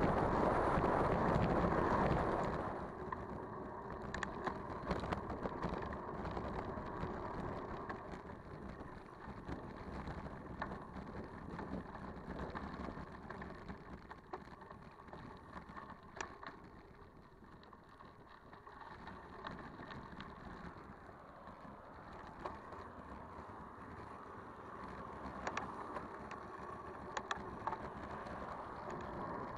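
Bicycle ride on a track: rushing wind and tyre noise, with scattered clicks and rattles from the bike. The rush is loud for the first couple of seconds, then drops to a lower, uneven level.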